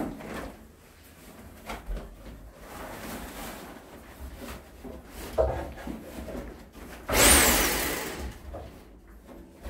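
Handling of a long wooden molding strip on tarp-covered cabinet tops: scattered wooden knocks and clatters with rustling. A loud hissing rush about seven seconds in lasts about a second and fades.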